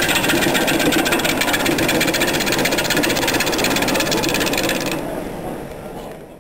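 Wood lathe spinning an off-centre mounted wooden bowl blank while a hand gouge cuts into it: a loud, rapid rhythmic chatter of tool on wood over the running machine. It fades out near the end.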